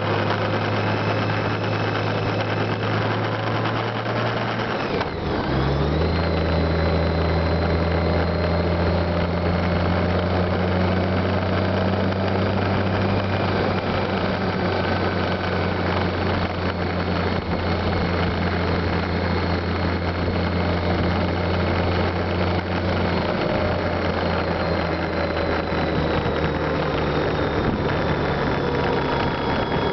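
Honda Gold Wing motorcycle riding along at a steady pace: a steady engine hum under a constant rush of wind and road noise. The engine note shifts abruptly about five seconds in, then holds steady.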